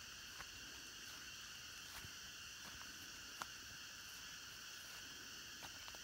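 Faint, steady chorus of insects droning in several high-pitched layers. A few brief clicks are scattered through it, the sharpest about three and a half seconds in.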